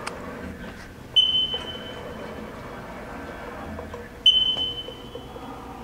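Haas CNC lathe control panel beeping as its keypad is pressed: two short high-pitched beeps about three seconds apart, each fading quickly, over a faint steady machine hum.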